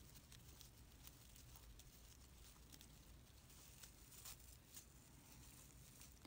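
Near silence with a few faint, short ticks and rustles: a crochet hook working red tinsel-like acrylic scrubber yarn.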